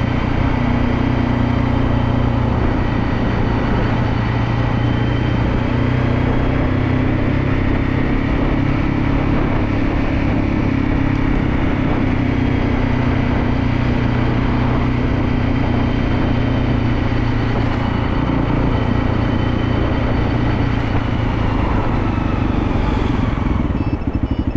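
Motorcycle engine running at a steady speed while riding, under a constant rushing noise.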